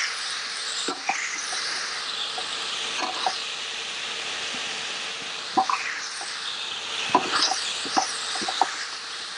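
Stir-fry sizzling in a steel wok as fish and vegetables are tossed, with a metal utensil clinking and scraping against the wok every second or so.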